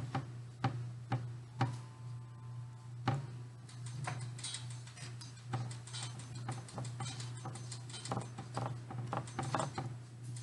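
Irregular light taps and clicks of a small handheld tool dabbing and pressing on a chalk paste transfer over a wooden pallet board, with a steady low hum underneath.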